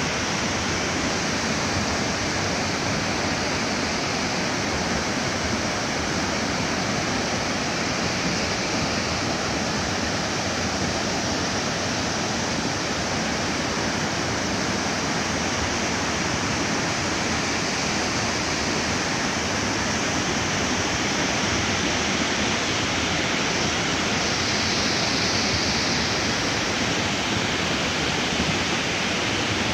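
Steady rushing of a swollen, silt-laden river in flood, flowing fast past banks of boulders.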